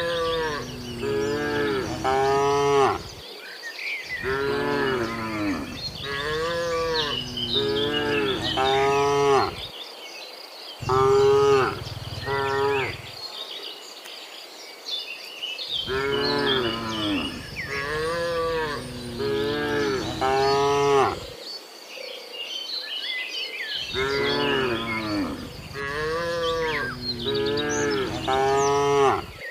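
Cattle mooing in quick runs of short calls, with pauses of one to two seconds between runs. One longer, louder moo comes about eleven seconds in.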